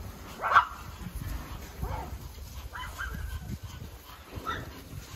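Dogs barking at a herd of cattle they have spotted: one loud bark about half a second in, then several more scattered barks and cries.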